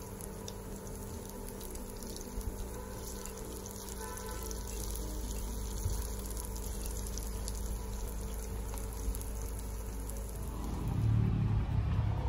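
Masala vadai shallow-frying in oil in the cups of a paniyaram pan, a steady sizzle with fine crackling, as they are turned with a metal skewer. A low rumble comes in near the end.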